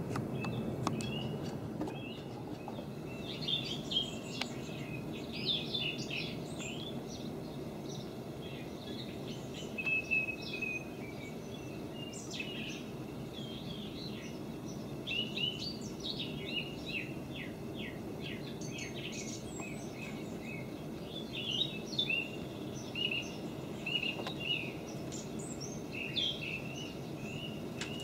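Songbirds chirping and trilling in the background, many short calls, over a steady low background noise.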